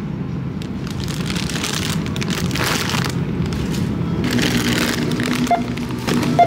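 Shopping cart rolling and rattling, heard from a camera riding in the cart, with a dense low rumble and scattered sharper clatters.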